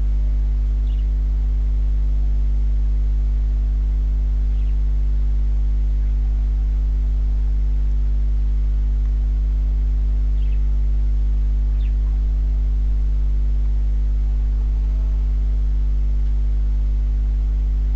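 Steady low electrical mains hum with a ladder of overtones, picked up by the recording microphone, unchanging throughout, with a few faint clicks.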